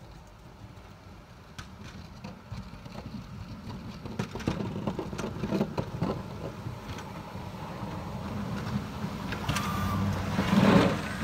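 Pickup truck with a front-mounted snowplow blade plowing a snowy driveway, its engine running and growing steadily louder as it approaches. The blade pushes and scrapes snow, and the sound is loudest about a second before the end as the truck passes close.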